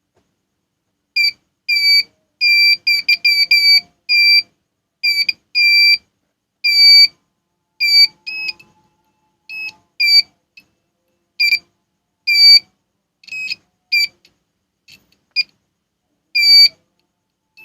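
A digital multimeter's continuity buzzer gives about twenty short, high beeps at irregular intervals as its probes touch points around the charging diode and fuse on a phone board. The beeps show a connection across the parts tested, and the parts are judged good.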